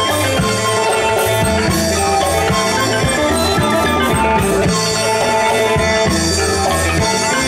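Isan pong lang folk ensemble playing lively music, with a steady drum beat under the melody.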